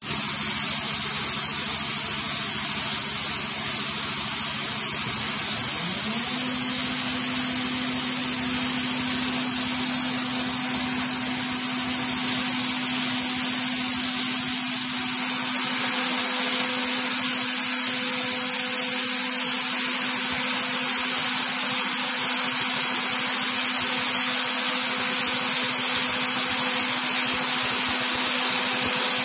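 CNC spindle milling a slot in aluminium plate with a small end mill, under a steady hiss from the mist-coolant spray nozzles. A low hum glides up in pitch about six seconds in and then holds steady.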